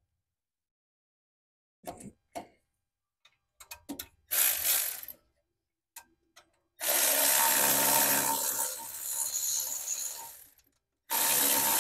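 Milwaukee 3/8-inch electric ratchet spinning out a brake caliper mounting bolt. A few clicks and a short burst come first, then a steady run of about four seconds, and it starts again near the end.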